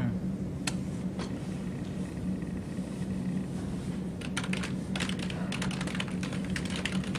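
Computer keyboard being typed on: a couple of single keystrokes in the first second or so, then rapid typing from about four seconds in. A steady low hum runs underneath.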